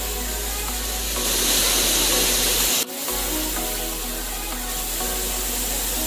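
Background music laid over the steady rushing roar of a waterfall pouring into a rock pool, with a momentary break about three seconds in.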